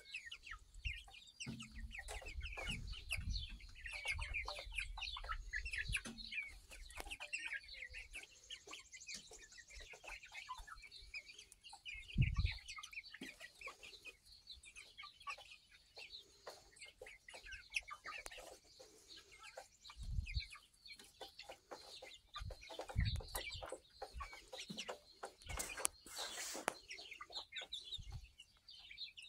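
A mixed flock of young backyard chickens clucking softly, many short calls overlapping steadily. A few low thumps come through, the loudest about twelve seconds in.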